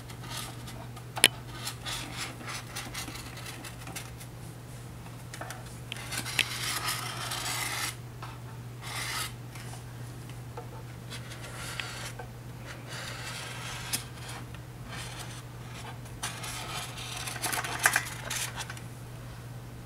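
A blade sawing and scraping through a styrofoam cooler to cut a hole, in uneven strokes with pauses and a few sharp clicks, over a steady low hum.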